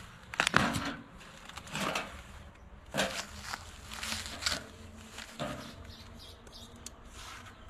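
Plastic packaging wrap rustling and crinkling in a series of short bursts as it is pulled and bunched off a sheet-metal tractor hood.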